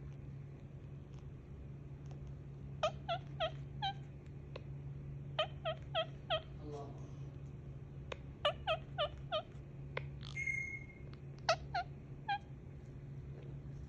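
Indian ringneck parakeet giving bursts of short, harsh calls, three to five in quick succession each time, four bursts in all, each call dropping slightly in pitch. About ten seconds in there is a single higher, drawn-out squeak.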